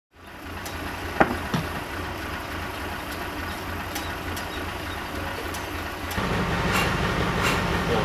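A heavy flatbed tractor-trailer's engine running, a steady low rumble that gets louder about six seconds in. There are two sharp knocks a little over a second in.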